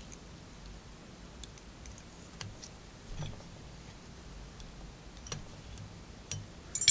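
Faint, scattered light clicks and ticks of small fly-tying tools, thread and materials being handled at a fly-tying vise, with a sharper click near the end.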